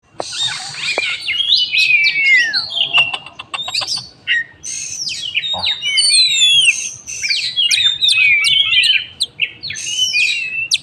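Oriental magpie-robin (kacer) singing a melodious, varied song of sweeping whistles, slurred notes and quick clicking notes, with hardly a pause.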